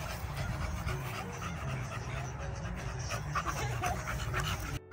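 American bully dog panting in quick repeated breaths over a steady low rumble.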